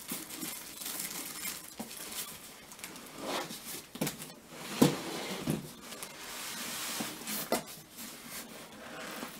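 Cardboard box flaps and paper packing being handled: rustling and scraping with scattered knocks, the sharpest knock about five seconds in.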